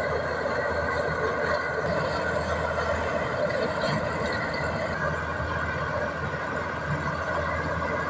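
Komatsu D61EX crawler bulldozer's diesel engine running steadily under load as the blade pushes a pile of rocky soil. It is a little quieter for a couple of seconds past the middle.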